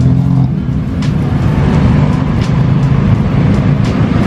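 Steady low rumble of a motor vehicle engine running close by on the street, with a few faint ticks over it.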